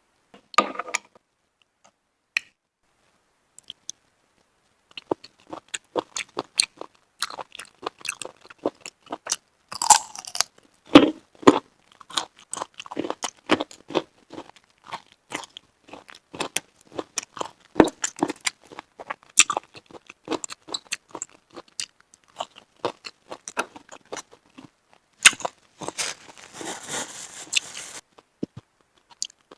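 Close-miked chewing of slimy steamed mountain-snail meat: a dense run of wet clicks and crunches, with a longer noisy stretch near the end.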